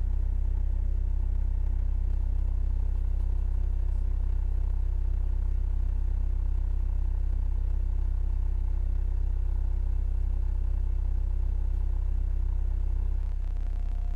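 Car subwoofer playing a steady 32 Hz test tone, driven at a 2-ohm load during an amplifier power test. The level drops slightly near the end.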